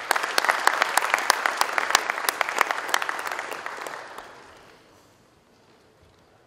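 Audience applauding in welcome, many hands clapping at once; the clapping thins and dies away about four to five seconds in.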